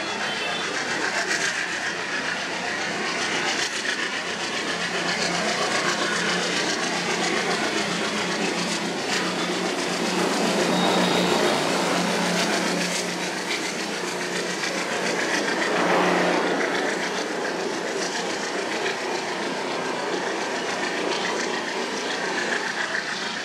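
WDM-3A Alco diesel locomotive running with its train: a steady engine hum under continuous wheel-on-rail noise, growing louder around eleven seconds in and again at about sixteen seconds.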